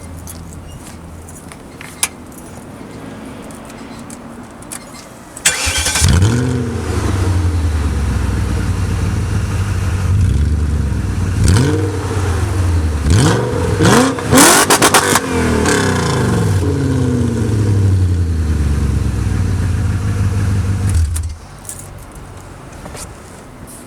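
1997 BMW 540i's 4.4-litre V8 with a straight-piped exhaust, catalytic converters still fitted. A quieter low engine sound turns suddenly loud about five seconds in, and the engine is revved several times, with quick blips in a row around the middle. It drops back abruptly near the end.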